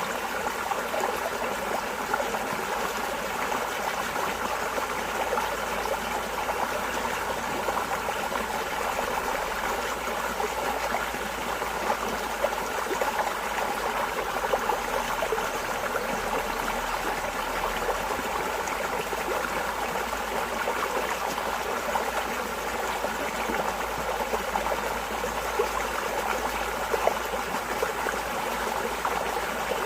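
Running water flowing steadily, with a dense, fine splashing and trickling texture and no change in level.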